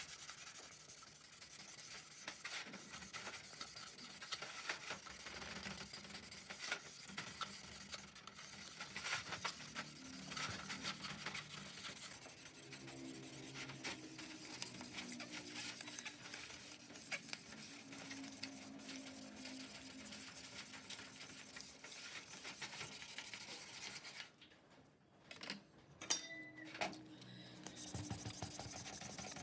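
Rapid hand scraping and rubbing strokes on a hard surface, of the sort made when cleaning or sanding a part by hand. The strokes stop briefly near the end, broken by a few sharp clicks.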